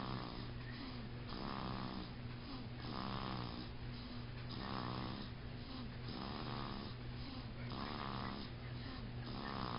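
A sleeping baby snoring heavily, like a grown man, with even, regular snores about every second and a half.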